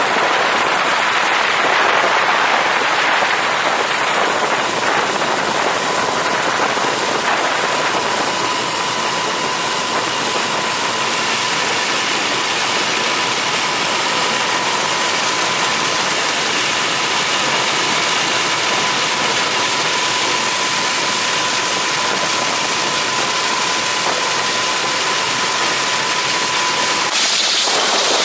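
Mi-17 helicopter's twin turbine engines and rotor running steadily: a loud, dense rush with a steady high whine. The sound shifts abruptly about a second before the end.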